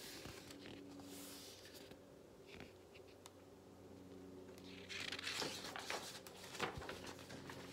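Faint rustling of a picture book's paper pages being handled and turned, with a few light clicks about five to seven seconds in, over a low steady hum.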